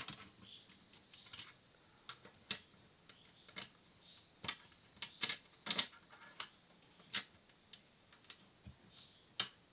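Irregular sharp clicks and taps of a screwdriver and small screws on a car stereo's metal chassis, about a dozen and a half spread through, as the IC's small heat sink is put back and screwed tight.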